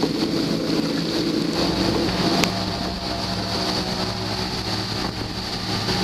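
Twin outboard motors of a fishing boat running steadily at cruising speed, with the rush of water and wind over the hull. The engine hum shifts in pitch about a second and a half in, and there is a single sharp click a second later.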